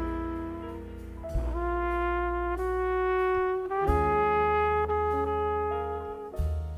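Jazz quartet of trumpet, piano, bass and drums playing a slow ballad, the trumpet holding long notes that change about every second and a bit over a sustained low bass line.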